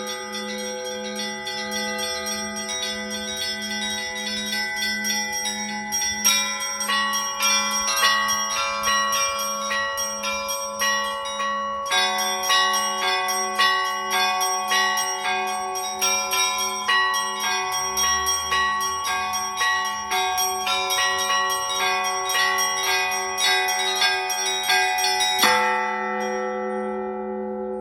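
Russian Orthodox church bells rung by a bell-ringer: small bells strike quickly in a repeating pattern over the pulsing hum of a large bell. The strikes grow denser after a few seconds, and about 25 seconds in a final heavy stroke ends the peal, leaving the bells ringing out and fading.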